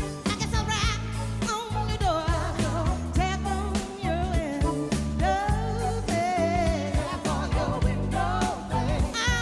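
Female lead vocalist singing long, wavering notes over a live funk-soul band, with electric bass, drums and electric guitar playing a steady groove.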